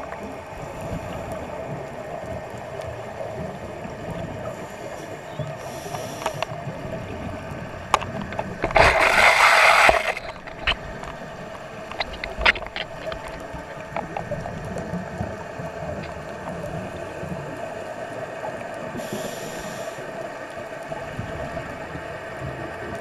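Underwater ambience picked up through a camera: a steady hiss and hum with scattered sharp clicks, and a loud rush of diver's exhaled bubbles lasting about a second, about nine seconds in.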